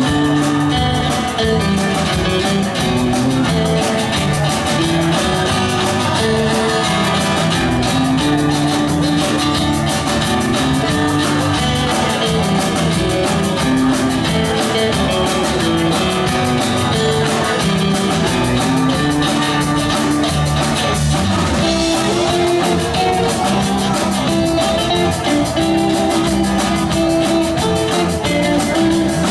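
Rock band playing an instrumental passage: guitar over a drum kit, with no singing.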